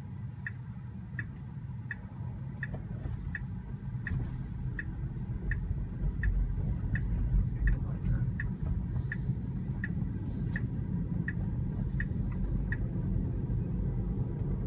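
Tesla Model 3's turn-signal indicator ticking steadily in the cabin, about three ticks every two seconds, stopping near the end as the turn is completed. Under it, low road and tyre rumble grows louder as the car pulls away and gathers speed.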